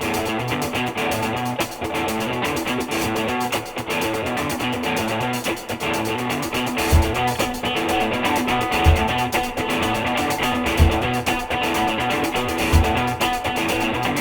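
Background music led by guitar, with a low beat every two seconds or so starting about halfway through.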